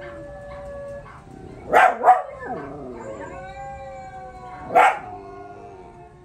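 Canine howling: several drawn-out howls overlapping at different pitches, slowly gliding, broken by three short loud yips, two close together about two seconds in and one near five seconds.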